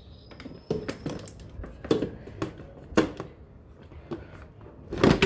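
Irregular clicks and knocks as an electric pressure cooker's lid is handled and opened once its pressure has settled.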